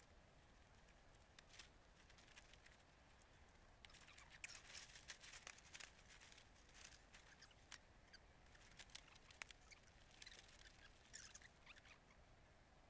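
Near silence, with faint scattered crackles and ticks that start about four seconds in and thin out near the end.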